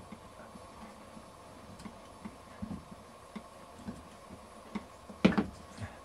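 Scattered light clicks and knocks of hands working a V-belt onto the pulleys of a SIP 06236 air compressor, with one sharper knock about five seconds in, over a faint steady hum.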